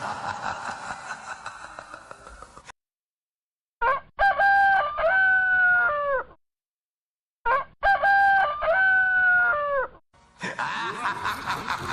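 A rooster crowing twice, the same crow repeated after a short silence, each about two and a half seconds long. Before the crows a pulsing clucking sound fades away, and near the end a new burst of busy clucking begins.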